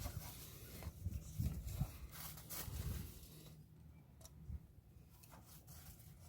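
Faint, scattered clicks, knocks and rustles of hand-tool work on a car's air intake.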